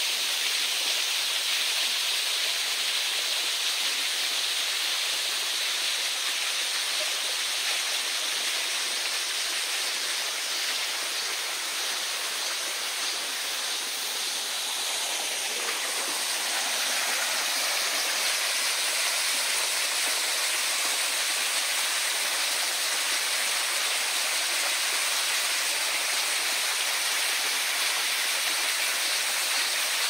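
Mountain stream water rushing over rocks: a steady, even hiss of flowing water that grows a little fuller about halfway through.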